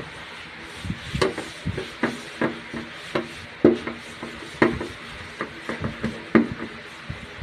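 Irregular knocks and taps, about fourteen at two to three a second, from parts of a gas range being handled and struck during burner repair.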